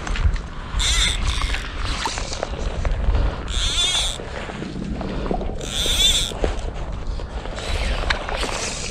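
Wind rumbling on the microphone, with short high squeaky rasps coming every couple of seconds.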